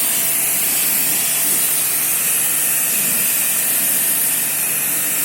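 High-pressure water jet from an AC-servicing pressure pump spraying steadily, a constant hiss as it washes dust out of the air conditioner.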